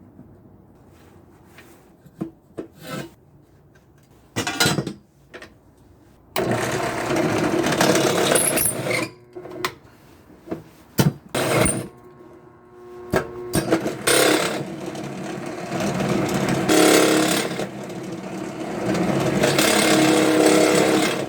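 Drill press running with a step bit boring a half-inch hole through a flattened dome strut end. It comes first in two short bursts, then in longer runs of several seconds with brief pauses, the longest in the second half.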